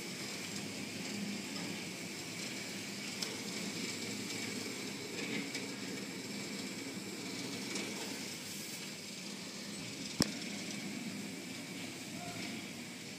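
Automatic tunnel car wash heard from inside the car: cloth strips and spinning brushes sweeping over the bodywork under water spray, a steady wash of noise with a faint high machine whine. A single sharp click about ten seconds in.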